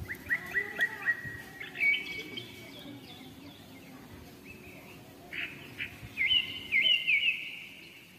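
Small birds chirping: quick runs of short, rising chirps, one series at the start and another near the end.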